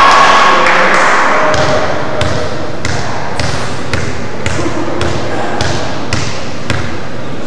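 A steady run of sharp slaps, about two a second, echoing in a gymnasium over crowd chatter; they start about a second and a half in.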